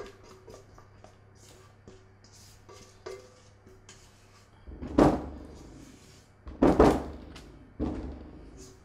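A silicone spatula scraping thick brownie batter out of a pan into a baking dish, with three louder scrapes and knocks: one about halfway through and two near the end. Faint background music plays underneath.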